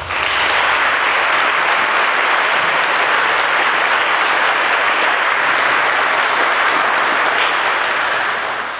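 Audience applauding: loud, steady clapping that starts all at once and begins to die away near the end.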